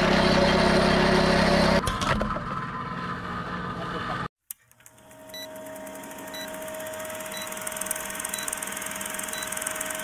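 Motorised sugarcane juice press running with a steady hum, loudest for the first two seconds. After a sudden cut, an old film countdown leader effect: a steady hum and fine projector clatter with a short high beep once a second.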